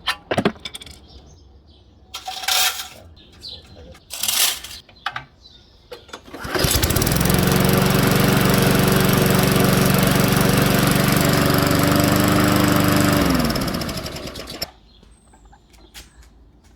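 Petrol walk-behind lawn mower: a few short rattling pulls on its recoil starter, newly repaired, then the engine catches about six and a half seconds in and runs steadily for about seven seconds before it is shut off, its pitch falling as it winds down.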